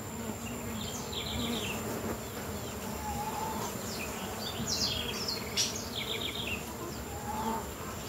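Uruçu stingless bees buzzing steadily around the entrance of their wooden hive box. The busy flight traffic is a sign of a strong, active colony. A few short high chirps come through about a second in and again around five to six seconds in.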